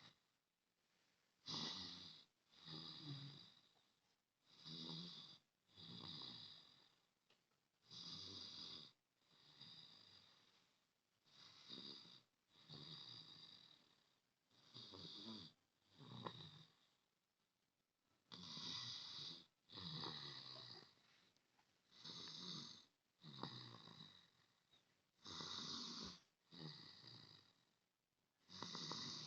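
A person snoring softly in deep sleep. The snores come in pairs about every three seconds, each with an airy, hissing edge and quiet gaps between breaths.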